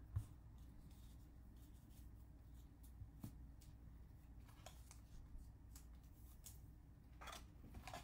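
Near silence: low room tone with a few faint clicks and rustles of trading cards and card boxes being handled and set down.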